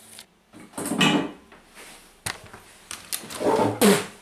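A man's short wordless vocal sounds, like grunts or growls, about a second in and again near the end, with a couple of sharp clicks in between.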